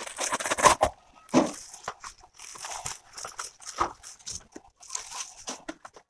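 Plastic mailer and packing material crinkling and rustling in irregular bursts as a parcel is unpacked by hand, loudest in the first second.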